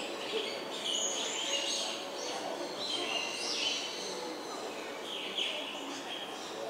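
Small birds chirping and calling, with many short high chirps and quick pitch glides overlapping throughout.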